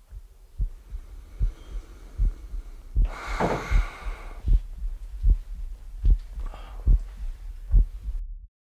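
Heartbeat sound effect: a steady low thudding pulse at about 75 beats a minute, with a loud breath about three seconds in. The beating stops abruptly near the end and cuts to silence, marking the heart stopping.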